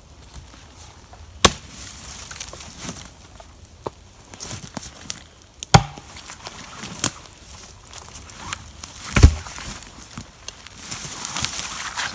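Several separate sharp knocks and thumps a few seconds apart, the heaviest one low and dull. Between them there is lighter rustling that grows louder near the end, as when gear and protective equipment are being handled and put on.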